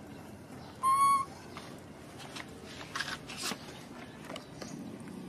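A baby long-tailed macaque gives one short, high coo call about a second in, followed by faint scattered clicks and rustles.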